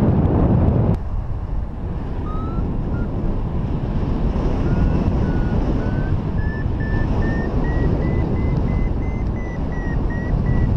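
Wind buffeting the microphone of a paraglider pilot's camera in flight, with a variometer beeping in short notes. The beeps climb steadily in pitch and dip slightly near the end, a sign that the glider is climbing in lift.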